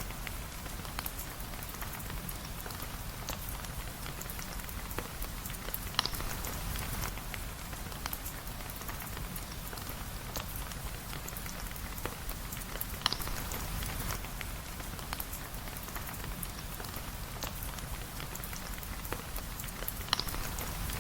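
Steady rain falling, with many small scattered ticks and three louder sharp pops spaced about seven seconds apart.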